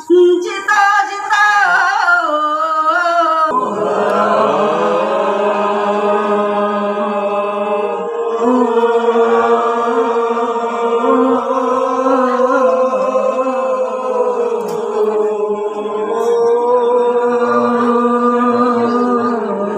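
Traditional group chanting: a lead voice sings alone, then about three and a half seconds in a crowd of voices joins in, singing long held notes together.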